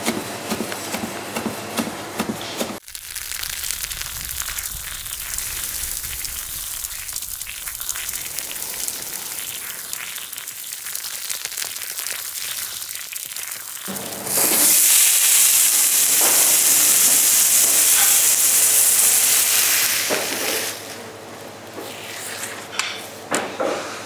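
Minced mutton kebabs on skewers sizzling and crackling over charcoal. About fourteen seconds in, the sizzle swells into a loud, steady hiss for about six seconds, then falls back. A different, fuller sound fills the first three seconds and cuts off abruptly.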